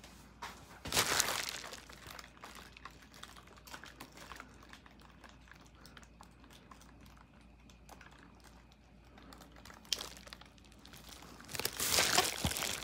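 Bubble wrap crinkling and rustling under handling, in louder bursts about a second in and near the end, with faint clicks and rustles between.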